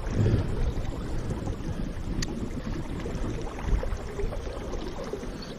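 Flowing river water over riffles, with wind rumbling on the microphone. A single faint click about two seconds in.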